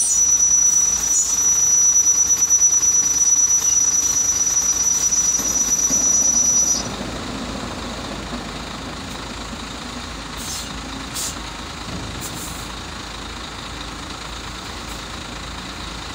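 HOWO dump truck running with its tipper body raised, a steady high-pitched whine over the engine. The whine cuts off about seven seconds in, and the engine runs on more quietly while the body lowers, with a few short hisses.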